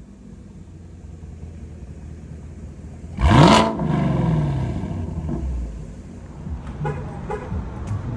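Chevrolet Camaro 2SS's V8 through a newly installed aftermarket exhaust, idling and then revved sharply once about three seconds in. The pitch climbs fast and drops back to idle over about a second.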